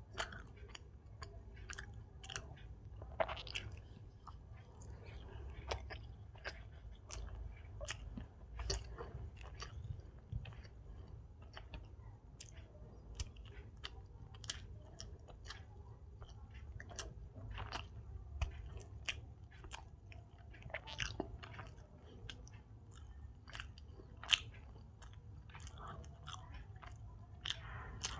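Close-miked chewing of soft Indian sweets, with wet mouth clicks and smacks coming at an uneven pace.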